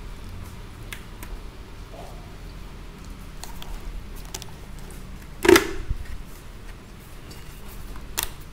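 A KYT Galaxy half-face motorcycle helmet being handled and turned over: light clicks of its plastic shell and fittings, with one loud sharp click about five and a half seconds in and another near the end, over a steady low hum.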